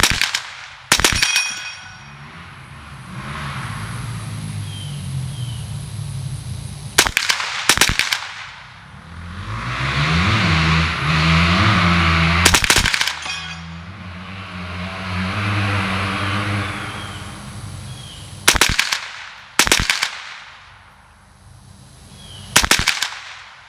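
Single shots from an AR-15 fitted with a CMMG .22 LR conversion kit, about eight in all, spaced irregularly from one to several seconds apart, some in pairs about a second apart. Between the shots a low rumble swells and fades, loudest around the middle.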